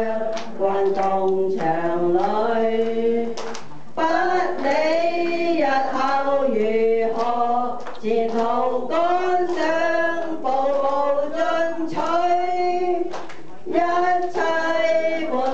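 A small group of men and women singing a song together, one voice through a microphone, in phrases with short pauses for breath.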